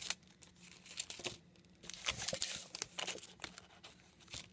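Airheads candy wrapper crinkling as it is handled, in several short spells of rustling, the longest and loudest about two seconds in.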